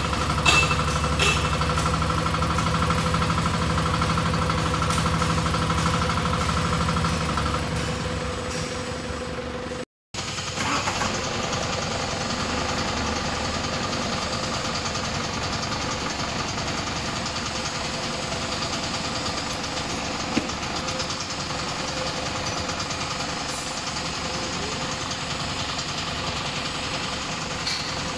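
Single-cylinder, fan-cooled KOOP 192 diesel engine of a 1-ton mini excavator running steadily, with a few clicks at the start, then fading after about eight seconds. After a short break, a forklift engine runs steadily while it lifts the excavator.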